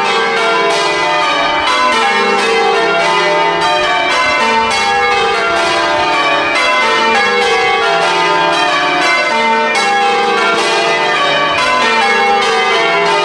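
Church bells being rung in changes, English full-circle change ringing, the bells striking one after another in a steady, rapid rhythm of several strokes a second.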